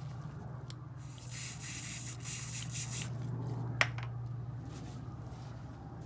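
Aerosol can of Loctite Clean and Prime spraying onto a paper towel: a hiss of about two seconds, starting about a second in. A single sharp click just before the four-second mark as the can is set down, with paper-towel rubbing and a steady low hum underneath.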